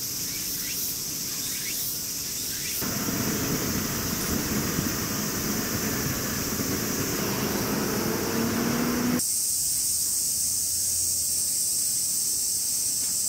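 Summer cicadas buzzing steadily in the trees. From about three seconds in, a broad rumble of town traffic and trains joins them, with a rising electric whine near the end of that stretch. Around nine seconds the rumble cuts off abruptly, leaving the cicadas alone.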